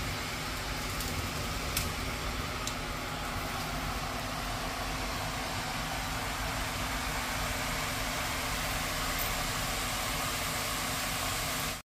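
Omapodi (gram-flour sev) dough strands deep-frying in hot oil in a steel kadai: a steady, vigorous sizzle. The strands are freshly pressed in and not yet ready to turn, which the cook judges by waiting for the sizzle to settle.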